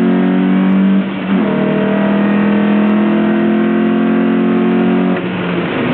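Lotus Elise engine running hard at steady high revs, heard onboard. The note breaks briefly about a second in, then holds steady until it drops away about five seconds in.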